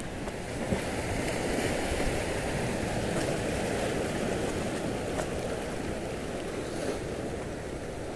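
Sea surf washing over a shallow reef: a steady rush of water that swells a little in the first couple of seconds.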